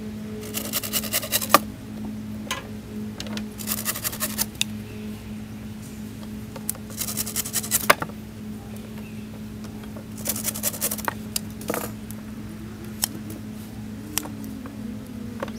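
Hand pruners cutting through alder sticks: four cuts, each a second of crunching ending in a sharp snap, then a few single clicks. A steady low hum runs underneath.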